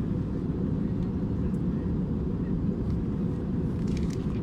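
Steady low rumble of an Airbus A321-200's cabin noise, engine and airflow noise heard from a window seat, even in level throughout.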